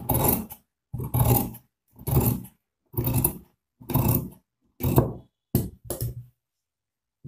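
Large tailor's shears cutting through folded denim: about eight snips, roughly one a second, the last two shorter and quicker.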